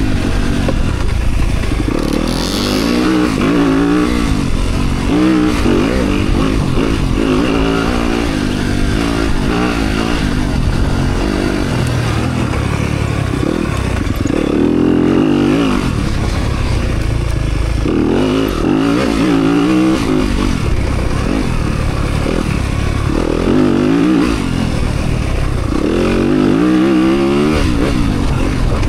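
Dirt bike engine being ridden hard, its pitch rising and falling over and over as the throttle is opened and shut every couple of seconds.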